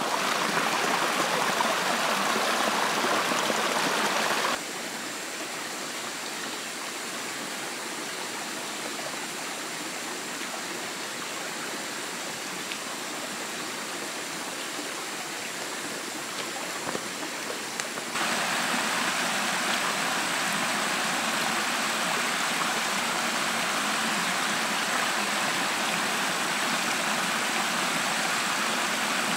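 Small stream spilling over mossy rock ledges: a steady rushing, splashing flow. It drops in level after about four and a half seconds and rises again past the middle, when a steady high, thin tone joins it.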